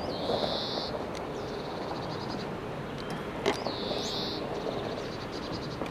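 Repeated high-pitched bird calls over a steady background rumble. Each call is a held phrase of about a second, coming every three to four seconds, with short trills between. There is a single knock about three and a half seconds in.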